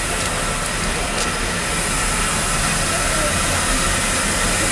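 Welsh Highland Railway Garrett steam locomotive No. 138 standing with steam up, hissing steadily.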